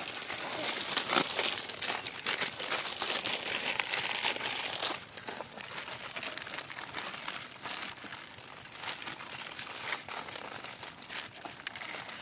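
Dry instant noodle cakes being broken apart and crushed by hand on steel plates, a dense crunching crackle mixed with plastic noodle wrappers crinkling. It is louder for the first five seconds or so, then softer.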